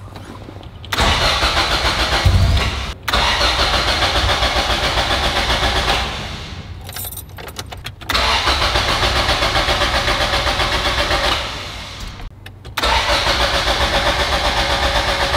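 Toyota AE86's four-cylinder engine, heard from inside the cabin, cranking, catching and running a few seconds before sagging and dying, several times over. It will not stay running after the distributor was taken out and refitted; the owner suspects the ignition timing.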